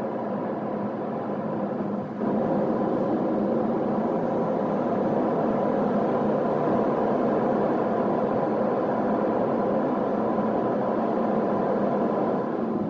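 Steady road and engine noise of a moving car heard from inside the cabin, with a faint hum. It gets louder about two seconds in.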